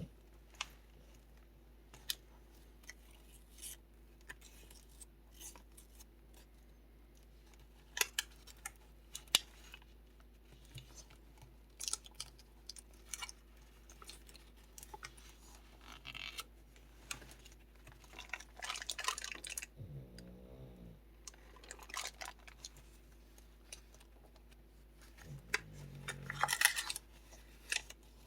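Paper pages and envelopes of a junk journal rustling and clicking as they are handled and turned. A dog's low rattling snore comes in twice, about two-thirds of the way in and again near the end.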